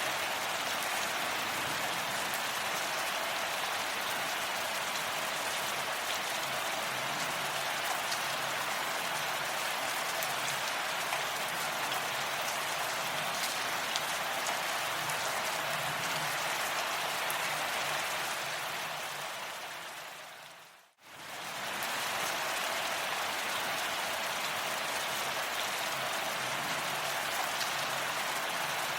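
Steady rain falling, an even hiss without any one drop standing out. About two-thirds of the way through it fades out to almost nothing and straight back in.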